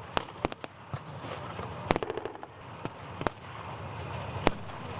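Gunfire from rifles and machine guns loaded with blanks: scattered single shots at irregular intervals, and a short rapid burst about two seconds in, over a steady background din.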